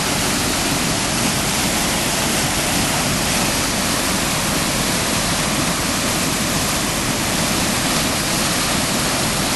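Floodwater in a swollen creek rushing steadily, a loud even roar of fast-moving water.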